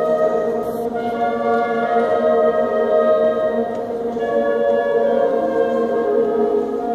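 Children's concert band of brass and woodwinds playing slow, sustained chords, the harmony shifting about a second in and again about four seconds in.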